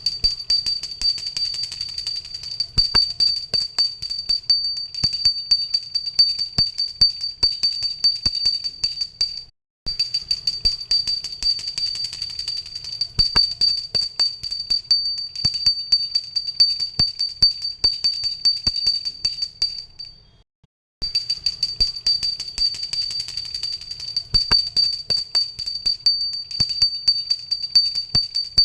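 A hand-held pooja bell rung continuously, its clapper striking rapidly and keeping up a steady high, clear ring. The ringing stops briefly twice, about ten seconds in and again about twenty seconds in, then starts up again.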